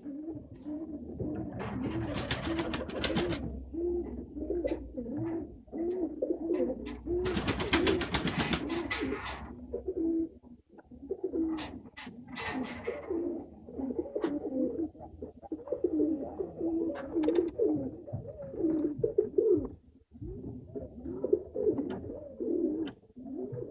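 Domestic pigeons cooing continuously, a rolling warble of overlapping coos. Twice a louder noisy flutter lasts about two seconds, and there are scattered light clicks.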